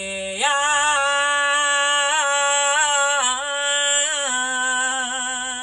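A woman's solo voice singing wordless light-language syllables: one long held line that rises about half a second in and wavers with small melodic turns, then settles lower near the end.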